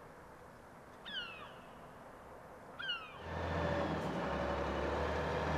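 Two short falling calls from an animal, about one and three seconds in. Then, from about three seconds in, the steady low engine note of a crane truck driving into the harbour square, much louder than the calls.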